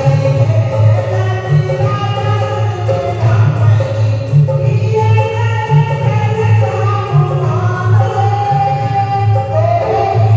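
Hindu devotional bhajan to Hanuman being sung over a steady, repeating drum beat.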